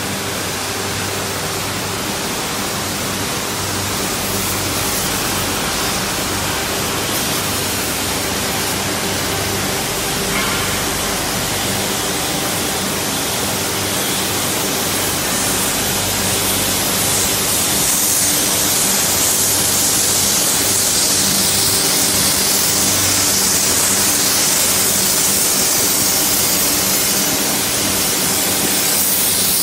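Air carbon arc gouging (carbon planing) on steel castings: a loud, continuous hiss of the arc and its compressed-air jet blasting molten metal away, with a steady low electrical hum underneath. The hiss grows louder and brighter a little past halfway.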